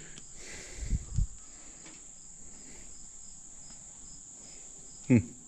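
Crickets chirping: a steady high insect trill with a regular pulsed chirp about three times a second. Two low thumps come about a second in, and a brief, louder downward-sweeping sound comes near the end.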